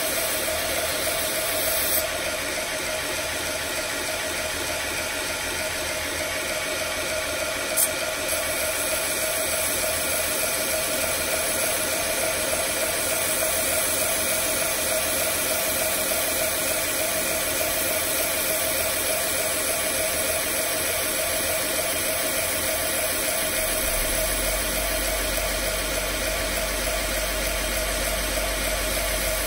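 Belt grinder running steadily with a 120-grit belt while a thin chef's knife blade is finish-ground on it freehand: a continuous grinding hiss over the machine's running noise. A deeper low hum joins in about three-quarters of the way through.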